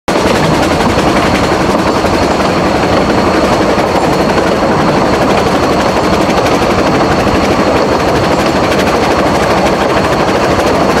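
Vale of Rheidol narrow-gauge steam train running, a loud, steady rattle and rumble that starts suddenly.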